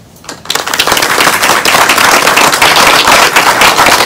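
An audience applauding, starting suddenly about half a second in and carrying on as loud, dense clapping from many hands.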